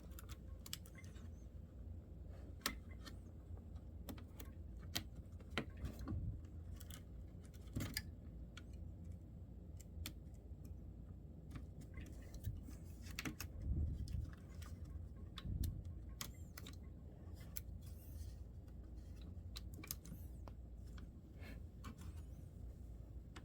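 Faint, scattered clicks and light taps of small laptop parts, connectors and screws being handled during reassembly, over a low steady background hum.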